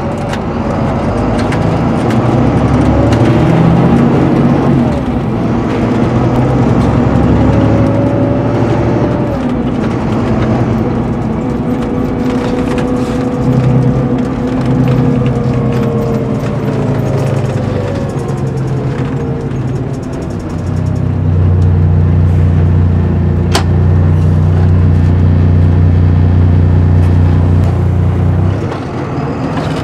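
Volvo B9R coach's rear-mounted six-cylinder diesel heard from inside the passenger saloon, pulling along with its note stepping and gliding as the I-Shift automated gearbox changes gear. It runs louder and steady in the last third and eases off just before the end, with one sharp click about two-thirds through.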